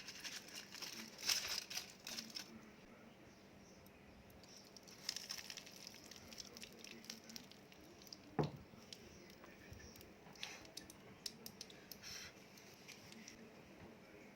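Kitchen handling sounds from food preparation: intermittent crinkling and rustling, scattered light clicks, and one sharper knock about eight seconds in.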